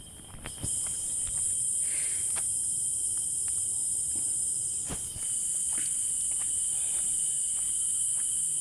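Insects, such as cicadas or crickets, keep up a steady, high-pitched buzz that starts about half a second in and breaks off briefly around five seconds. A fainter steady note sits underneath, with scattered light ticks and crackles.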